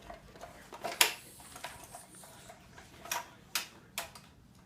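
A few scattered sharp clicks and light knocks, the loudest about a second in, from parts of a baby swing being handled during assembly.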